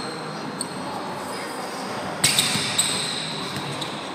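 Basketball dribbled on a hardwood gym floor, with sneakers squeaking. The loudest moment is a sharp bounce and squeal a little over two seconds in, followed by a couple of quicker hits.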